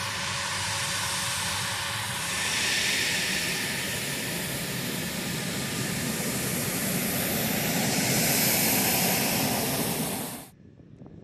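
Military jet engines running on an airfield ramp: a loud, steady jet noise with a high whine, which cuts off suddenly near the end.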